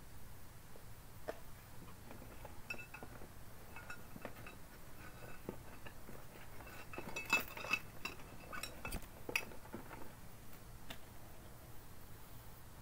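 Scattered clicks and light clinks of small hard objects being handled, most of them, and the loudest, about seven to nine and a half seconds in, over a low steady hum.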